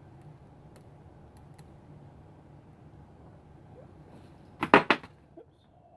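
Small hard parts being handled: a few faint ticks, then a quick run of about three sharp knocks near the end, with one small tick after.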